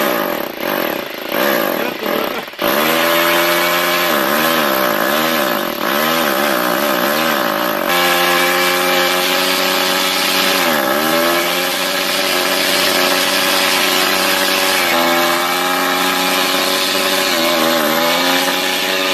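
Handheld corded electric drills running, revved in short bursts at first and then held on, their whine dipping and rising again and again as the triggers are eased and squeezed, like an engine being throttled.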